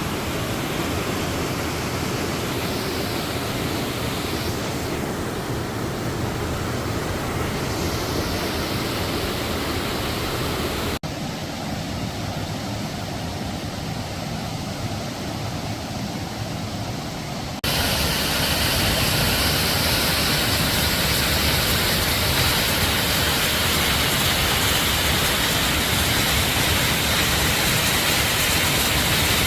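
Steady rushing of a waterfall swollen with rainy-season water, an even noise with no pitch. About eleven seconds in it turns abruptly quieter and duller, then comes back louder and brighter some six seconds later.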